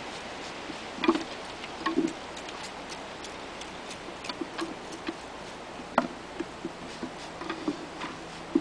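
Hand spray bottle and wooden hive frames being handled as sugar water is sprayed onto the frames: irregular sharp clicks and light knocks, the loudest about a second in, at two seconds, at six seconds and at the very end.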